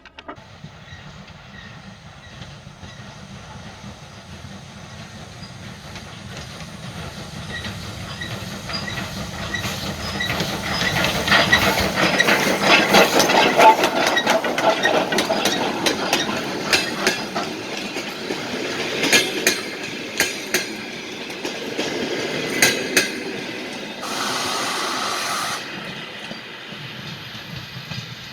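Steam locomotive approaching and passing, its running gear giving a rhythmic, repeated squeak that grows louder as it comes close. Sharp wheel clicks over the rail joints follow, and a burst of hiss lasting about a second and a half comes near the end.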